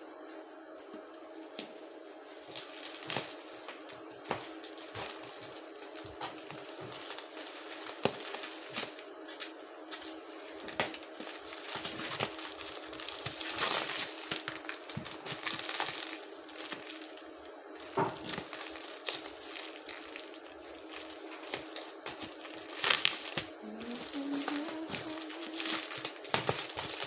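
Plastic packaging crinkling and crackling in irregular handfuls as a parcel is unwrapped, over a steady low hum.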